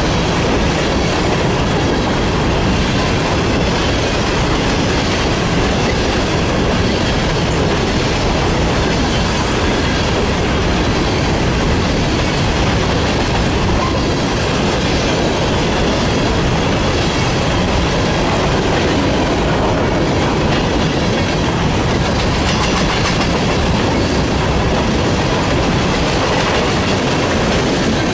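Freight train of empty grain cars rolling past at close range: a steady, loud noise of steel wheels on the rails, holding even throughout.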